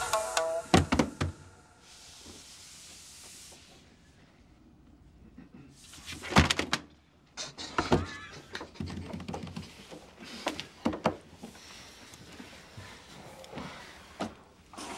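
A few sharp knocks and thumps against a wooden table, the loudest about six seconds in, with muffled, stifled laughter from people bent over the table.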